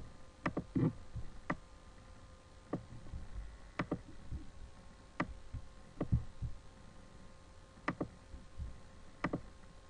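Computer mouse clicking: about a dozen sharp, single clicks at irregular intervals, over a faint steady hum.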